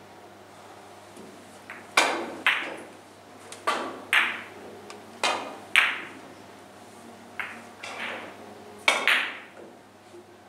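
Carom billiard balls clacking during two shots: each is a quick run of sharp clicks from the cue tip striking the cue ball and the balls knocking into each other, the first starting about two seconds in and the second near the end.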